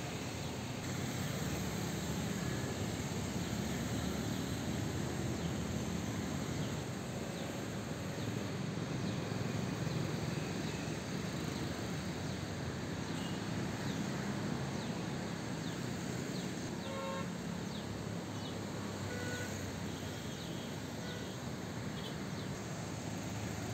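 Steady rushing of floodwater pouring through a stream channel. A vehicle horn sounds briefly about two-thirds of the way through.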